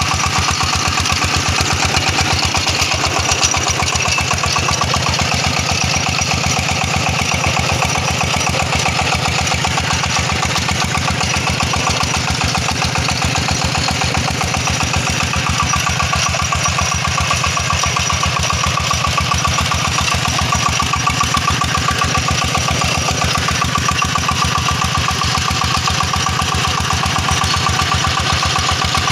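Công nông two-wheel tractor's single-cylinder diesel engine chugging with a steady, rapid beat, working under load as it pulls a loaded cart.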